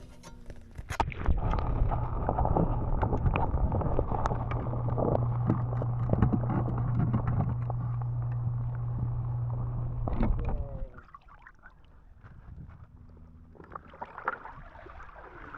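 Water splashing and pouring off a cordless robotic pool cleaner as it is hauled out of the pool, with a steady low hum and many small knocks. This goes on for about ten seconds and cuts off suddenly.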